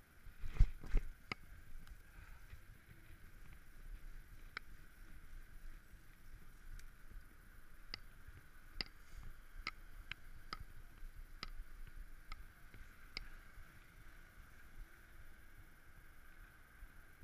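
Mountain bike riding, heard from a handlebar camera: a couple of heavy jolts about a second in, then scattered sharp clicks and rattles from the bike over a steady low rumble of wind and rolling tyres.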